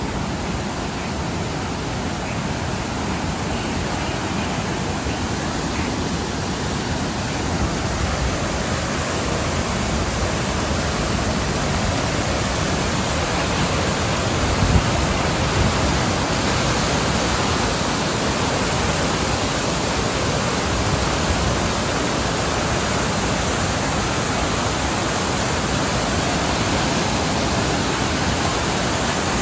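Rushing water of a waterfall cascading over rocks: a steady, loud, even wash of noise that grows louder over the first several seconds, with a brief louder surge about halfway through.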